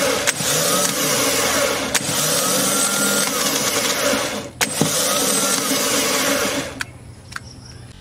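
Car starter motor spinning freely on a bench, switched through the ignition key: a loud whirring that breaks off with a click about four and a half seconds in, then runs again for about two seconds before stopping.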